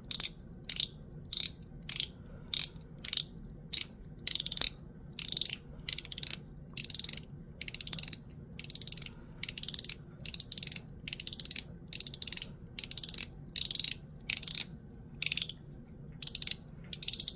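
YEDC Mechanical Pig Slider, an Ultem (PEI) plastic fidget slider, slid back and forth over and over. Each stroke is a quick run of strong, sharp detent clicks, five in each direction, coming about twice a second.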